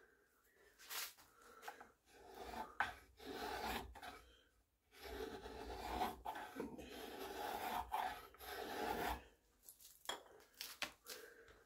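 Scraping and rubbing in the barrel channel of a wooden rifle stock: short strokes at first, then a longer stretch of steady scraping, followed by a few light clicks near the end.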